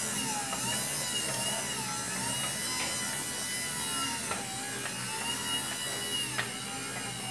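Homemade churro-dough mixer powered by a car windshield-wiper motor, running and beating stiff dough in an aluminium pot. It gives a steady electric whine whose pitch dips and recovers now and then, with a few faint clicks.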